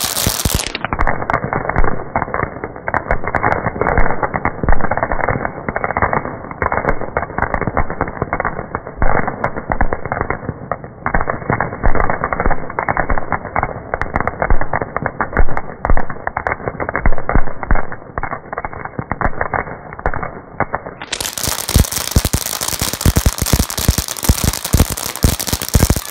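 Firecrackers going off in a dense, continuous string of bangs and crackles, many a second, with louder bangs standing out. It sounds muffled for most of the stretch and brightens again near the end.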